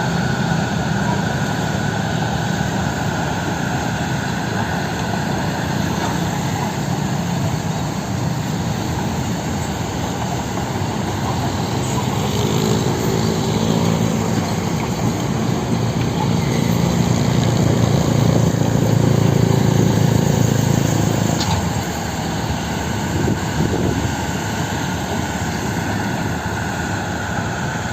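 Heavy earthmoving machinery running: the diesel engines of excavators, dump trucks or a bulldozer give a steady low drone. It grows louder about two-thirds of the way through, then drops back.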